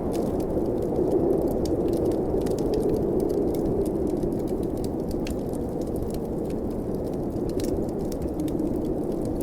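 Blizzard wind blowing steadily in a low rush that swells slightly about a second in, with a wood fire crackling over it in many small, sharp pops.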